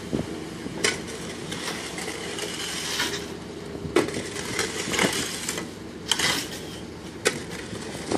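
Concrete mixer truck running steadily, with a handful of sharp metal scrapes and clinks from shovels working wet concrete in wooden formwork.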